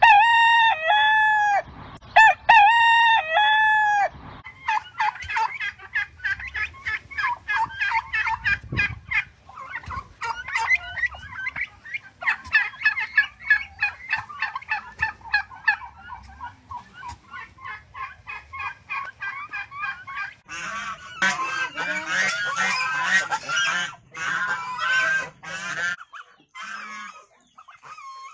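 A rooster crows twice, two long drawn-out calls, followed by rapid repeated clucking calls. In the second half a flock of domestic turkeys calls and gobbles together, a dense overlapping chatter.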